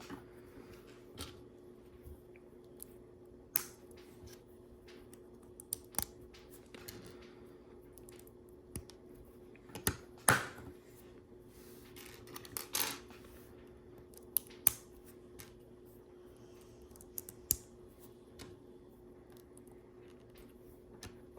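Plastic LEGO bricks clicking and rattling as they are picked out and pressed onto a build, in scattered sharp clicks at irregular intervals over a faint steady hum.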